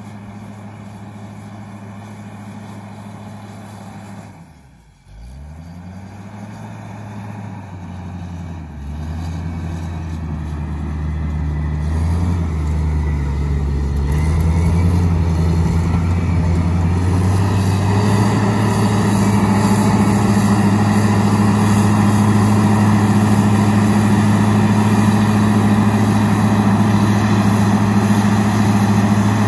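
O&K L45 wheel loader's diesel engine running while pushing excavated soil: its speed drops sharply about four seconds in, then revs back up in steps and holds steady at high revs, growing steadily louder through the second half.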